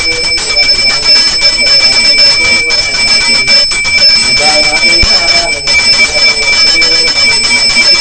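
Brass puja hand bell (ghanti) rung rapidly and without pause, a loud shimmering metallic ringing, accompanying the aarti lamp offering.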